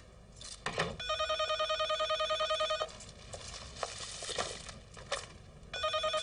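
Telephone's electronic ringer trilling: a warbling ring of about two seconds starting about a second in, pulsing about ten times a second, then the next ring starting near the end. Knocks and rustling from handling come between the rings.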